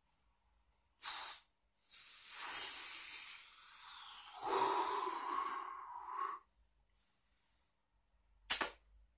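A man stifling laughter: a sharp puff of breath, a long hissing exhale through pursed lips and nose, then a strained, half-voiced snort of suppressed laughter. A single sharp click comes near the end.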